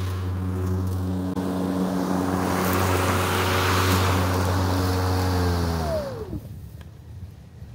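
Hart 40V 20-inch battery lawn mower running with a steady electric hum and the rush of its spinning blade. About five and a half seconds in, the safety bail is let go and the motor and blade spin down with a falling whine, stopping about a second later.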